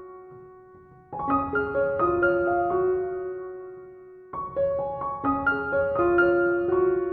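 Background piano music: gentle phrases of single notes that ring and die away, a new phrase starting about a second in and another after about four seconds.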